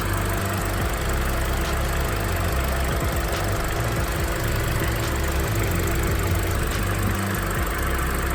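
Car engine idling steadily with the air-conditioning compressor engaged, a low rumble with a faint tick about every second and a half.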